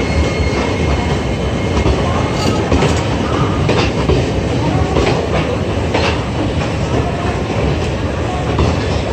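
Passenger train coaches rolling past, their wheels clacking over the rail joints in a recurring rhythm under a steady rumble.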